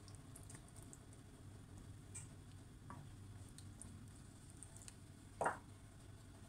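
Thick lentil curry simmering in a frying pan: faint, scattered little pops and ticks of bubbles breaking at the surface, with one louder soft thud about five and a half seconds in.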